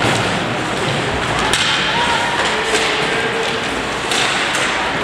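Sports game noise: steady crowd and players' hubbub with scattered sharp knocks and thuds of play.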